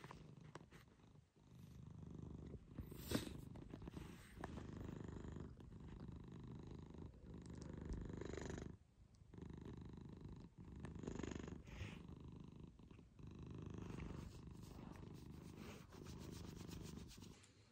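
Domestic cat purring, a low, rough purr that swells and fades with each breath a second or two apart.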